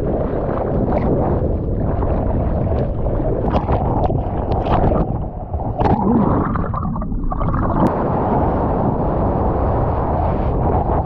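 Seawater splashing and rushing right at a GoPro riding on a surfboard as the surfer paddles out. About six seconds in the sound goes muffled for a second or two while board and camera are pushed under a wave in a duck dive, then the splashing returns.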